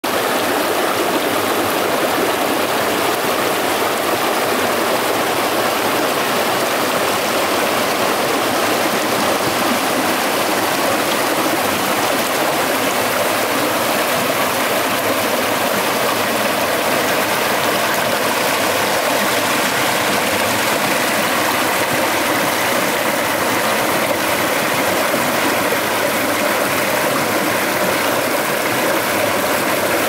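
Creek water rushing and splashing over rocks in small cascades, a steady, unbroken rush.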